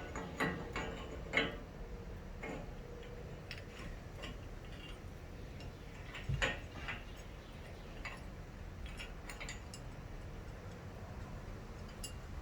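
Irregular small metallic clicks and clinks of bolts, nuts and steel mounting plates being handled and fitted together, a few louder knocks near the start and about halfway through.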